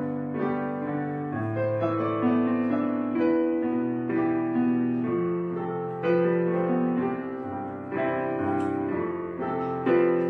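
Background music: a slow piano piece, single notes and chords changing about every half second to a second.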